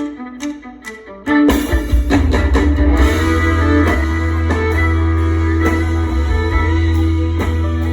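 Live band playing a song: a few sparse picked guitar notes, then about a second and a half in the full band comes in with heavy bass under guitar chords.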